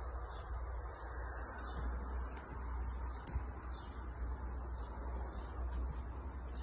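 Outdoor back-yard ambience: birds chirping and cooing over a steady low rumble, with short high ticks about once or twice a second.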